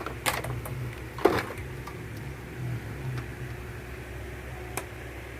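A few short knocks and rustles of an audio cable and its plugs being handled, the strongest about a second in, over a steady low hum.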